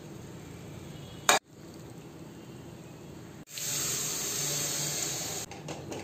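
Water poured from a vessel into a cooking pot of brinjals, a steady splashing hiss lasting about two seconds from halfway through. Before it, about a second in, a single sharp click.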